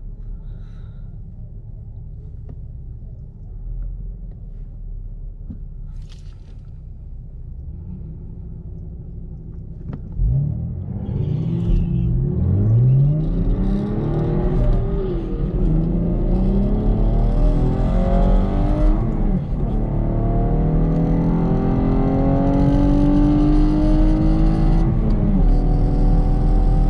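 Chevrolet Camaro engine heard from inside the cabin, idling at the drag strip's start line. About ten seconds in it launches at full throttle for a quarter-mile pass. The revs climb and drop back at each upshift, about four times, while wind and road noise build.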